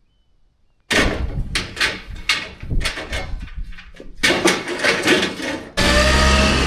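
Near silence, then from about a second in a run of irregular clattering knocks and rattles, like hard objects being handled. Near the end a steady mechanical hum starts.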